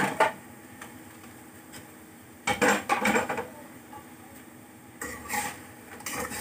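Metal utensils clattering and scraping against a metal wok: a wire-mesh strainer and ladle knocking on the pan as cooked French fries are scooped out of the oil. The clatter comes in short bursts, at the start, about two and a half seconds in, and again near the end.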